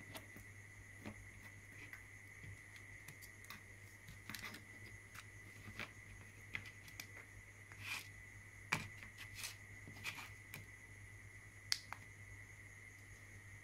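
Scattered small clicks and taps of hands handling a USB power bank, a Digispark ATtiny85 board and jumper wires, plugging the board in, over a faint steady hum and a high whine.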